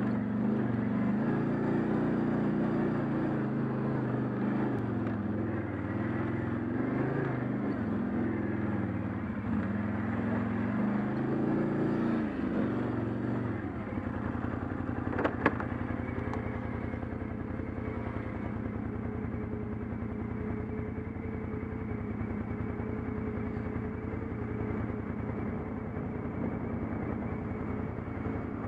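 ATV engine working up a rocky trail, revving and easing off over and over, then settling to a steady, even run about halfway through. A single sharp click comes shortly after it settles.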